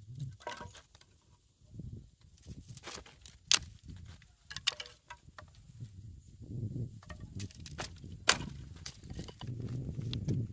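Intermittent light clinks and clicks of things being handled, with two sharper clicks about three and a half and eight seconds in.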